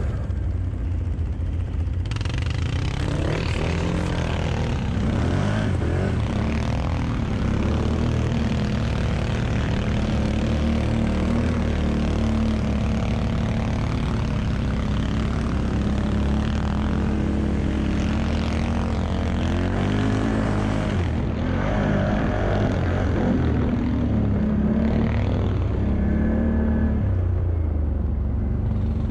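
ATV engine running under load on a snowy trail climb, a steady low drone whose revs rise and fall again and again as the throttle is worked.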